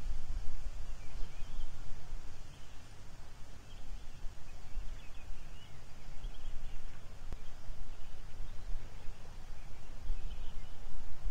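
Wind buffeting the microphone as an uneven low rumble, with a few faint, short high-pitched bird peeps scattered through.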